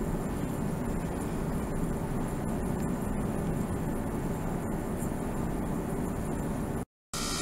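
Steady low running noise of a small electric pump circulating water through a plastic tank, with faint ticks and a thin high whine. It cuts out for a moment near the end and comes back brighter and hissier.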